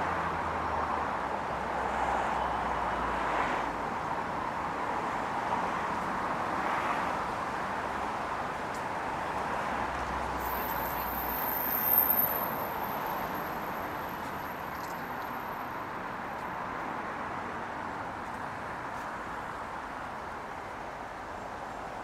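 City street traffic: a steady wash of passing cars on a wide road, with a brief louder sound about halfway through and a thin high whine for several seconds in the middle.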